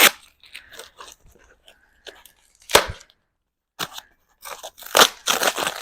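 Bike packaging being handled and unwrapped: plastic and foam wrap crinkling and tearing in scattered bursts, with a sharp crackle about three seconds in and denser rustling near the end.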